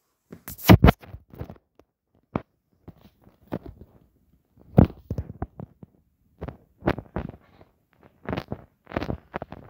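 Irregular soft thumps and rustles from plush toys being handled and dropped onto a fabric couch, along with handling of the camera. The loudest bumps come just under a second in, with scattered knocks after that.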